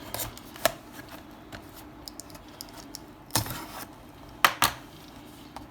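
Seal tape on a cardboard product box being cut and the box handled open: scattered light clicks and scrapes, with a longer scrape about three and a half seconds in and two sharp clicks just after.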